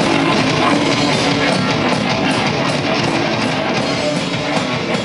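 Heavy metal band playing live: electric guitars over a drum kit, loud and continuous.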